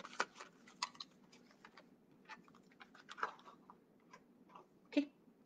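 Scattered small clicks and rustles of a skincare set's packaging being opened and its containers handled, with a sharper click near the end.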